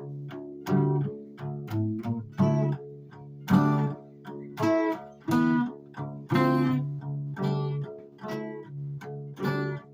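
Music: a plucked guitar playing notes and chords over a steady low line.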